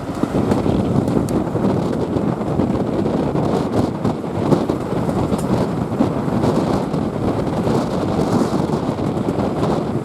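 Steady running noise of a steam-hauled passenger train heard from on board, wheels rumbling on the rails, with wind buffeting the microphone.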